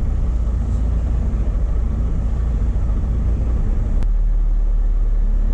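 Semi truck's diesel engine running, heard from inside the cab as a steady low rumble, with a single sharp click about four seconds in.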